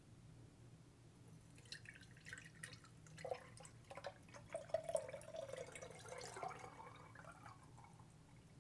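Warm clarified spiced butter (niter kibbeh) pouring from a pot through a metal mesh strainer into a glass jar: faint splashing and trickling that starts about two seconds in and fades out near the end.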